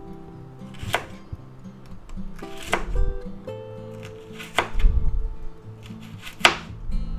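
Kitchen knife slicing through carrots on a cutting board: four sharp cuts, about two seconds apart, over background music.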